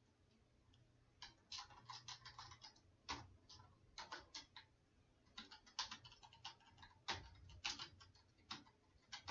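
Faint computer-keyboard typing: irregular keystroke clicks in quick runs, with a short pause near the middle.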